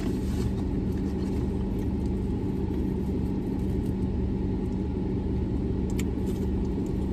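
Steady low hum and rumble of a running car heard from inside its cabin, with one faint click about six seconds in.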